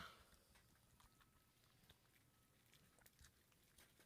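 Near silence, with faint scattered clicks of slime being stirred in a bowl.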